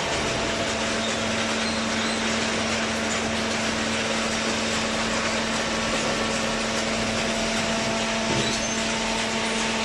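Hydraulic cardboard baler running: an even mechanical noise from its motor and pump, with a steady hum that stops shortly before the end.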